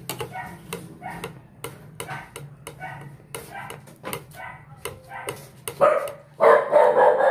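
Dog barking repeatedly, about three short barks a second, getting much louder near the end.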